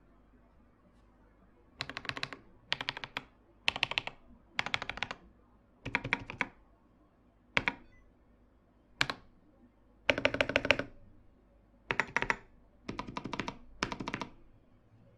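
Mechanical keyboard typing on a KM84 Plus with factory-lubed Akko CS White tactile switches, its case dampened with cotton and PE foam. About two seconds in, the keystrokes start in short bursts of rapid clacks, about ten in all, with a couple of single key presses in the middle.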